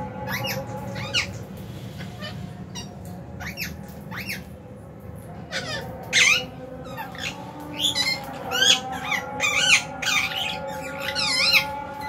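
Lovebirds giving short, shrill chirps and squawks, a few scattered at first, then coming thick and fast in the second half, over a steady background hum.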